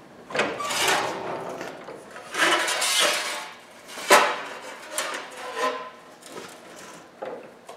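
Sheet steel rattling and scraping as the panel is shifted and clamped in a sheet-metal brake, with a sharp metallic knock about four seconds in and a few lighter knocks after it.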